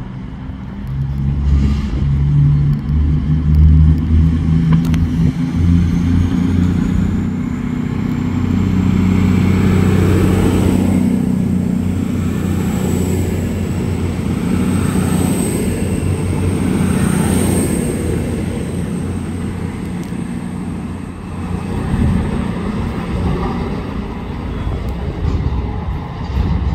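A train running past: a loud low rumble with a thin high whine that climbs in pitch and then holds steady, easing off in the last few seconds.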